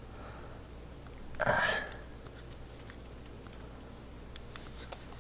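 A short breathy vocal noise about a second and a half in, then a few faint clicks of a headlamp's push button as its light modes are cycled.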